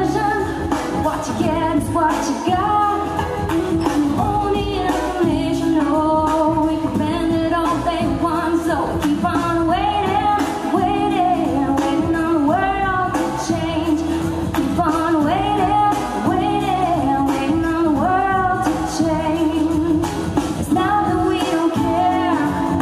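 A woman singing a song into a microphone, her voice carrying over a musical accompaniment.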